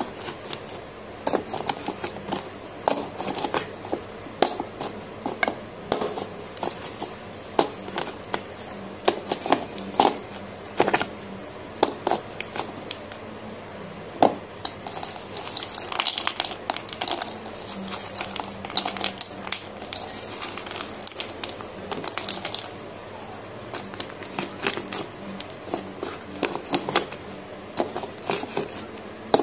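Slate pencils crushed under a pestle in a bowl: a run of irregular sharp cracks and crunches as the sticks snap into small fragments.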